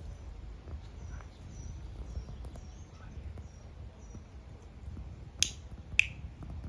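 Faint, high bird chirps over a low outdoor rumble, then two sharp clicks about half a second apart near the end.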